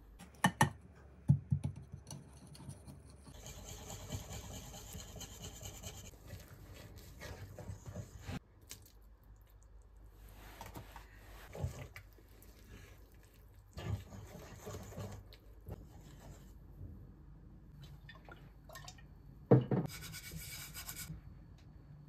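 Wire whisk stirring pancake batter in a bowl: scraping, wet stirring strokes that come and go in spells, with a few sharp knocks.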